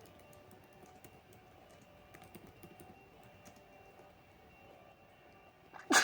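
A single loud sneeze near the end, a dog-allergy sneeze, after a few seconds of faint scattered clicks.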